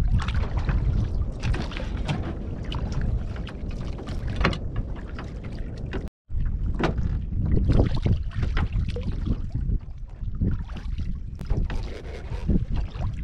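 Wind buffeting the microphone with a steady low rumble, over scattered knocks and rustles of a fish and fishing line being handled in a small wooden boat. The sound cuts out completely for a moment about six seconds in.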